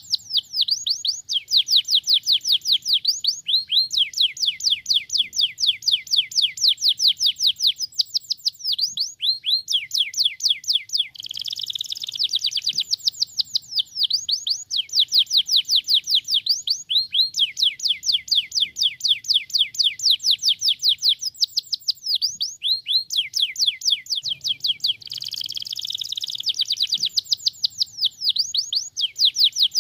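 Domestic canary singing continuously in fast trills: runs of rapidly repeated sweeping notes, each run lasting a few seconds, broken now and then by short buzzier rolls.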